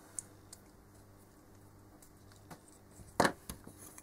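Hands handling a plastic lead-bending jig and a circuit board on a rubber work mat: a few faint clicks, then one sharp clack about three seconds in as the jig is set down, followed by small ticks.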